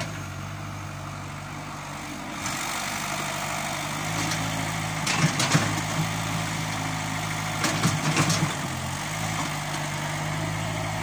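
Diesel engine of a Caterpillar E70 hydraulic excavator running steadily, its note rising and growing louder about two and a half seconds in as the hydraulics take load. Short bursts of knocking and rattling come twice, about halfway through and again a few seconds later.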